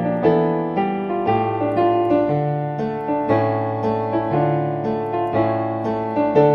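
Piano playing a slow instrumental song arrangement: struck chords over a bass line that moves to a new note about once a second.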